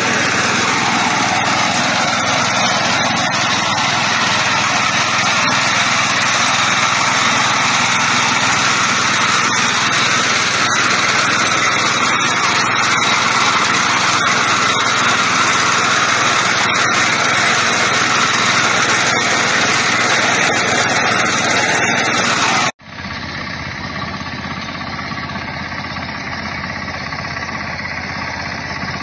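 Small engine of a walk-behind rice reaper running steadily while cutting standing rice. About three-quarters of the way through the sound cuts off abruptly and another reaper takes over, running a little quieter.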